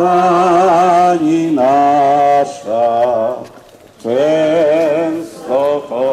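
People singing a hymn together, one nearby voice loudest, in held, wavering phrases of about a second each with short breaks for breath between them.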